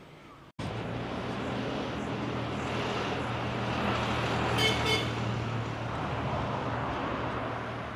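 Road traffic: a car going by on the street, its engine and tyre noise starting abruptly, swelling to a peak around the middle and easing off. A brief high chirp sounds about five seconds in.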